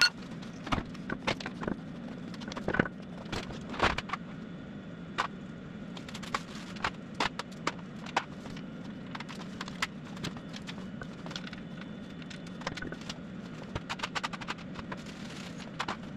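Irregular sharp metal clicks and knocks from an engine hoist's chain and lifting bracket as an engine block is lowered into a car's engine bay, over a steady hum.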